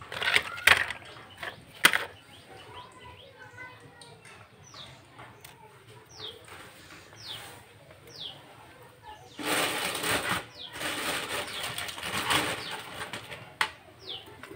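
A few light clicks of thin bamboo sticks being handled on a tiled floor, then a bird repeating a short, falling chirp about once a second. A few seconds of rustling noise come in the middle.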